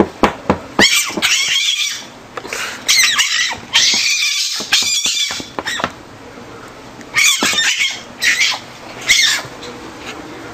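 A fox's high-pitched squeaking calls, coming in a string of short bursts with brief pauses between them.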